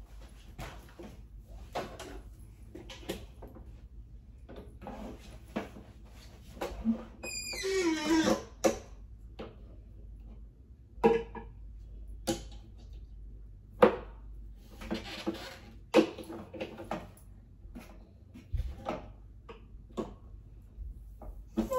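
Scattered knocks, clicks and clatter of objects being handled and set down while unpacking, with a longer rasping, sliding sound about eight seconds in. A steady low hum sits under most of it.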